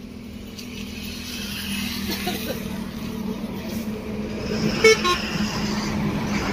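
Swaraj 744 FE tractor's three-cylinder diesel engine running steadily, getting a little louder after the first second. A single short horn toot sounds about two thirds of the way in.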